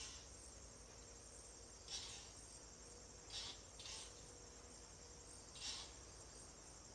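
Faint insect chirring, a steady high-pitched drone with short louder chirps every second or two.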